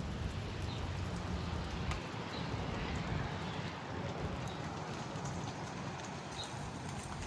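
Storm wind rumbling on the microphone, with rain falling throughout.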